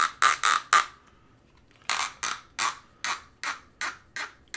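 A 3D-printed PETG clamp screw being twisted through its printed threaded body, plastic rubbing on plastic in short squeaks that are like a duck call. The squeaks come about three a second, with a pause of about a second shortly after the start.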